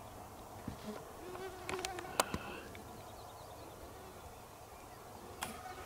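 Mosquitoes buzzing, a thin wavering whine, with a sharp click about two seconds in and another near the end.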